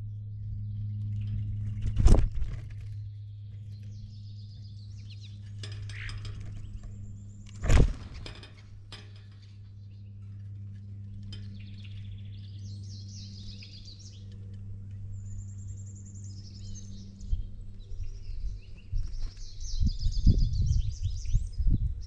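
Songbirds chirping and singing in short high phrases over a steady low hum. Two sharp knocks, one about two seconds in and another some six seconds later, are the loudest sounds, and low rumbling bumps come in near the end.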